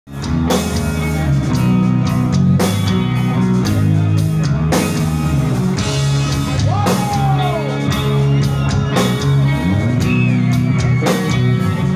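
Heavy metal band playing live: electric guitars, bass and drum kit with steady drum hits, heard from the audience.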